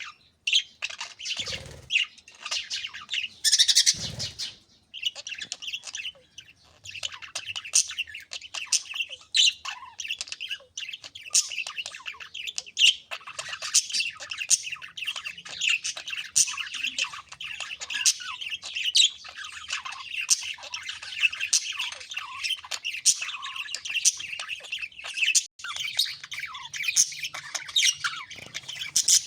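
A flock of budgerigars chattering and chirping continuously: many overlapping short, squawky chirps and warbles. Two brief louder noise bursts come in the first few seconds.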